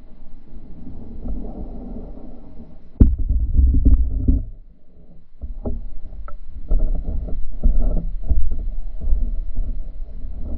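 Low, muffled water sloshing and rumbling against an underwater microphone, with a few sharp knocks. It gets suddenly louder about three seconds in, eases briefly, then picks up again.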